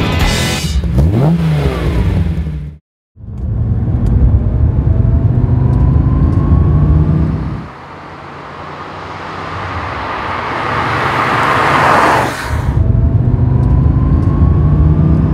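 The tail of the intro music breaks off in a short dropout. Then a 1991 Porsche 964 Turbo 3.3's turbocharged flat-six pulls hard. The engine note falls away, then climbs and swells steadily as the car comes closer, and the loud engine returns with the camera on the car.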